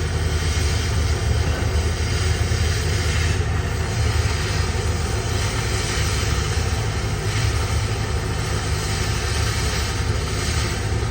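Welding on 316 stainless steel: a steady low electrical hum with an even hiss of the arc over it, unbroken throughout.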